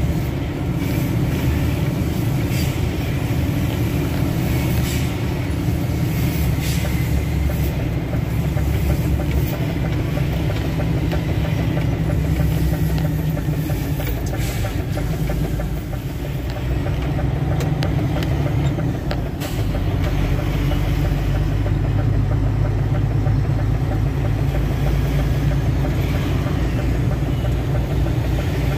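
Tractor-trailer truck's diesel engine running steadily, with scattered knocks and clicks in the first half. The engine note dips briefly and then changes about twenty seconds in.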